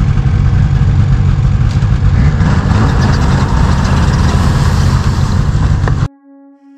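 Ski-Doo snowmobile engine running close by, with a strong low rumble. It cuts off abruptly about six seconds in, giving way to quiet, slow bowed-string music.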